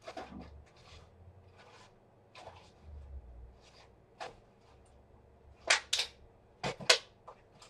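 Scattered clicks and knocks of small tools and parts being handled on a workbench, with two sharper pairs of clicks near the end.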